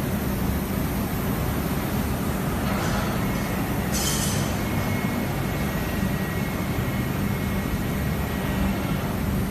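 Robotic laser welding machine running, a steady mechanical hum and hiss, with a short burst of hiss about four seconds in and a faint high whine over the second half.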